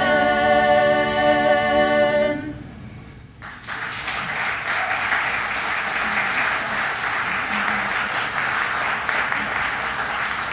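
Women's vocal ensemble singing unaccompanied, holding the final chord of a Croatian folk song, which stops about two seconds in. After a short pause, an audience applauds steadily until the end.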